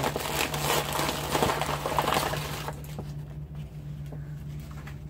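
Plastic packaging crinkling and rustling as a bag of craft supplies is handled and opened, busy for about the first three seconds and then much quieter. A steady low electrical hum runs underneath.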